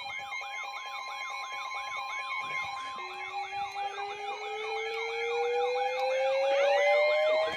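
Several emergency-vehicle sirens sounding together over steady tones: a fast yelp at about three cycles a second and a slow wail that starts about three seconds in and climbs steadily. A second tone sweeps up and holds near the end as the sound grows louder.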